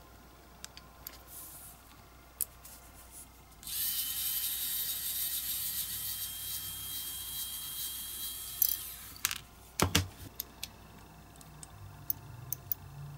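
A Wowstick precision electric screwdriver whirs steadily for about five seconds as it turns a tiny screw in a die-cast model's body, then cuts off. A sharp click follows, with light clicks and taps of small metal and plastic parts being handled before and after.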